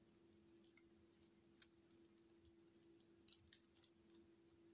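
Faint, irregular clicks and taps of a plastic Transformers action figure's parts being handled and fitted together, over a faint steady hum.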